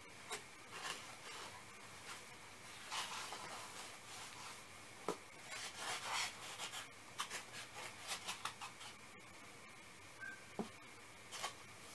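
Hands rustling and scraping a tied shipping bag and soft packing material into a cardboard box: irregular rustles with a few light clicks and knocks.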